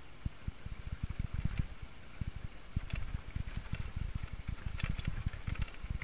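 Singlespeed 29er mountain bike riding over rough trail, heard through the action camera's mount: a constant run of irregular low thumps and knocks from the jolting, with a few short crackles from the tyres on the ground.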